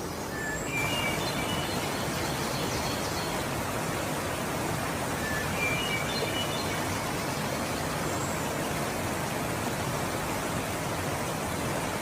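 Steady rush of a small waterfall, which grows louder about a second in, with birds chirping briefly now and then over it.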